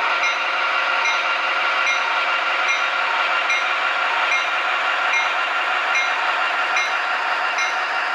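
Onboard sound system of an HO-scale MTH F7 diesel locomotive model playing steady diesel engine running sound through its small speaker, with no deep bass. A light tick repeats about every 0.8 seconds over it.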